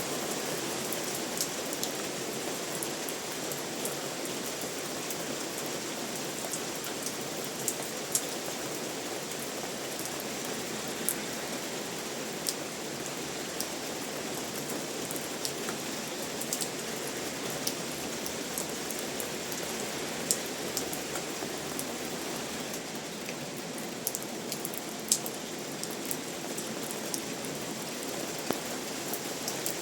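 Steady rainfall, a continuous hiss with scattered sharp drips of individual raindrops striking a surface.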